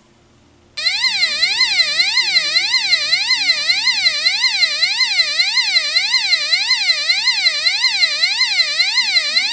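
UM3561A siren-sound generator chip driving a small round buzzer, giving a loud electronic siren wail that sweeps smoothly up and down in pitch about one and a half times a second. It starts about a second in and runs on without a break.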